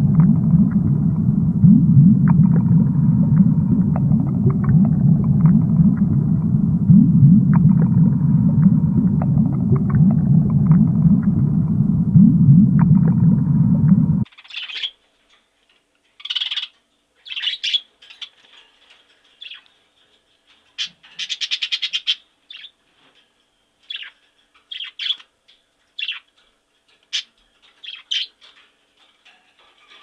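A steady low underwater rumble with faint scattered clicks, which cuts off suddenly about halfway through. Budgerigars then chirp and warble in short, separate calls, one after another.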